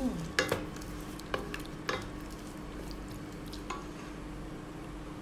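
Wooden spoon stirring thick tomato sauce in a stainless steel pot, knocking against the pot about five times, mostly in the first two seconds, while the sauce simmers with a light sizzle.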